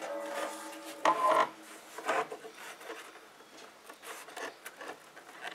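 Dark brown cowhide being stretched and rubbed by hand over a car door panel: irregular rubbing and scuffing of leather on leather and board, with a brief pitched squeak in the first second or so.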